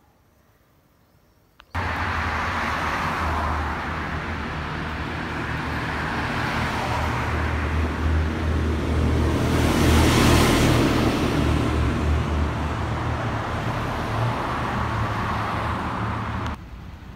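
Engine drone and road noise of a moving vehicle, heard from inside it. It cuts in suddenly about two seconds in, grows louder around the middle and drops off suddenly near the end.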